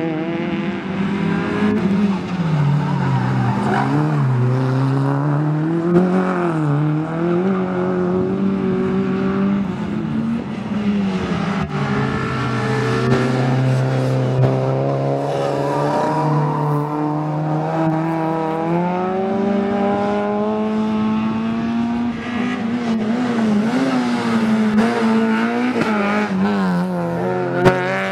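Small four-cylinder hatchback race cars, a Citroën Saxo, a Fiat Uno and a Peugeot 106, lapping a circuit, engines revving hard and dropping in pitch again and again with gear changes and braking for corners.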